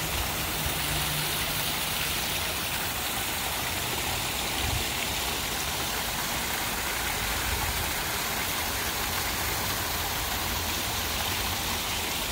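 Garden fountain spraying water, a steady, even splashing of falling water.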